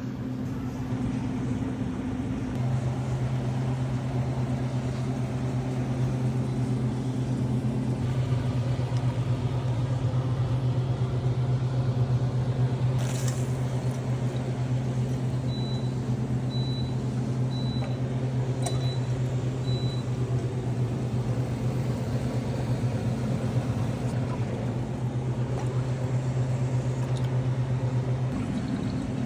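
Café hot water dispenser running with a steady low electrical hum, which grows stronger a few seconds in and eases off near the end. A single click comes midway, followed by five faint short beeps.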